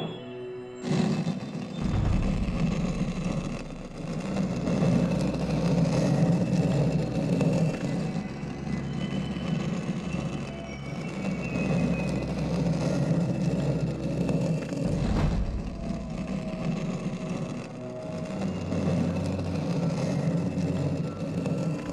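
Heavy stone floor slab grinding as it slides aside to open a hidden passage: a continuous rough, low rumble that starts about a second in.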